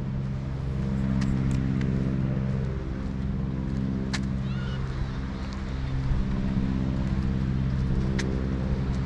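A vehicle engine running steadily close by, a deep hum that swells slightly about a second in and again around six seconds, with a few light clicks over it.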